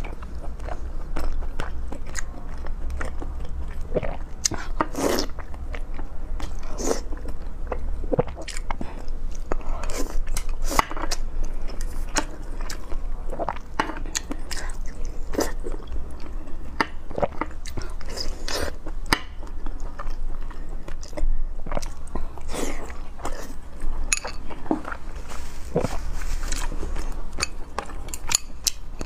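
Close-miked chewing of soft braised pork belly and rice, with irregular wet mouth smacks and clicks and a steady low hum underneath.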